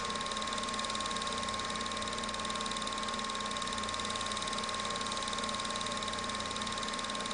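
Film projector running: a steady mechanical whir with a fast, even flutter and a constant thin whine.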